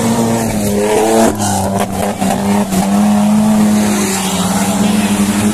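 Engines of 4x4 off-road race vehicles running hard at high revs as they pass close on a mud track. The revs climb about half a second in, and a few sharp knocks come around a second and a half in.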